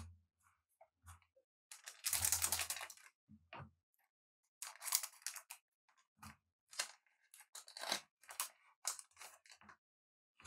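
A trading-card pack is torn open in one rip of about a second, some two seconds in. A shorter rustle follows around five seconds, then a quick run of short scrapes and flicks as the cards are slid through by hand.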